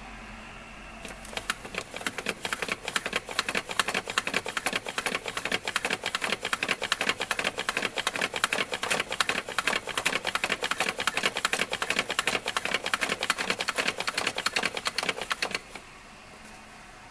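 Nintendo horse-racing toy's plastic crank mechanism turned by hand, giving a rapid, continuous clicking as the four horses advance down the track. The clicking starts about a second in and stops abruptly about a second and a half before the end.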